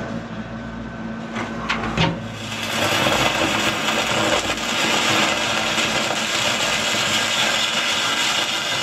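Angle grinder grinding a steel boat's hull plate: a few knocks, then from about two seconds in a steady, hissing grind that holds on.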